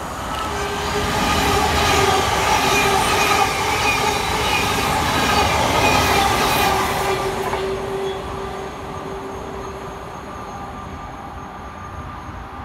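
Thameslink Class 700 (Siemens Desiro City) electric multiple unit passing through the station: wheel and rail noise with a steady whine. It builds over the first couple of seconds, is loudest in the middle and fades from about eight seconds in.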